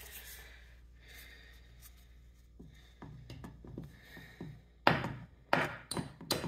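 Retaining clip being worked back onto an Ariens snow blower's wheel axle by hand: quiet handling and small knocks, then several sharp clicks in the last second and a half as the clip goes on.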